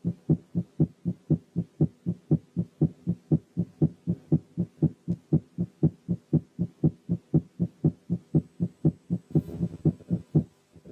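Normal first and second heart sounds (lub-dub) at a rate of 120 beats a minute, a tachycardia. The thumps come about four a second and are nearly evenly spaced, so systole is hard to tell from diastole by the gaps alone.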